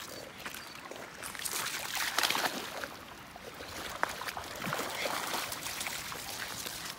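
Dogs splashing as they swim and wade through a shallow river, water sloshing around their legs, loudest about two seconds in.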